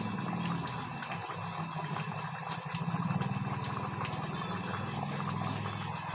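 Chicken curry in coconut milk bubbling in the pot at a simmer, with many small pops, over a low steady hum.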